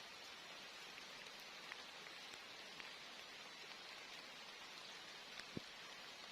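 Faint, steady rain falling, an even hiss with scattered drop ticks and one sharper tap near the end.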